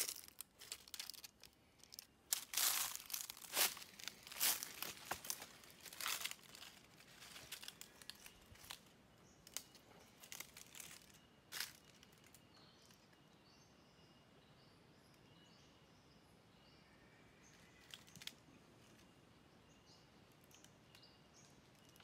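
Footsteps crunching and crackling through dry leaf litter and twigs on the rainforest floor for the first half, irregular and loudest a few seconds in. Then it goes quiet, with faint bird chirps and one light click near the end.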